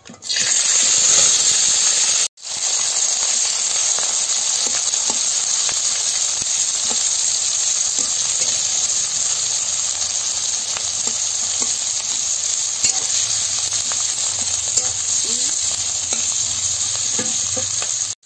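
Sliced onions, garlic and chillies sizzling in hot oil in a kadai, freshly added and frying toward brown, stirred and scraped with a metal spatula. The steady sizzle drops out for an instant about two seconds in.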